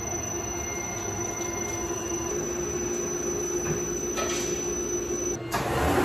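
Tormach 15L Slant-Pro CNC lathe running a parting-off cut on a tiny turned part, with coolant spraying, giving a steady whine. About five and a half seconds in, the whine stops and a louder burst of noise follows.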